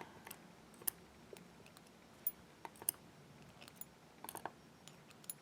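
Small, sharp metallic clicks and taps at irregular intervals: key pins and driver pins being set back into a lock cylinder's plug.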